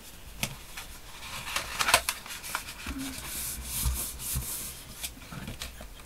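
A sheet of thick scored card being handled and folded: crisp rustles and light taps, with a stretch of rubbing about halfway through as the fold is pressed down.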